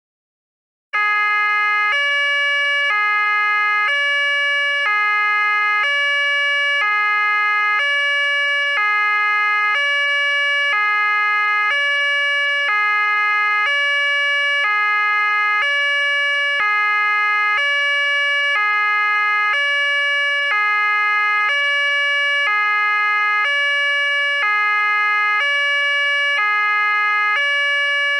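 Police siren sounding the two-tone hi-lo pattern, stepping between a high and a low tone about once a second. It starts about a second in.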